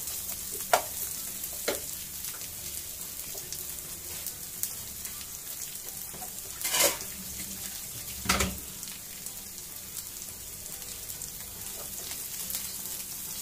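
Sliced onions sizzling in hot oil in a non-stick frying pan over high flame, stirred with a wooden spatula. A few scrapes and knocks of the spatula against the pan stand out, the loudest about seven and eight and a half seconds in.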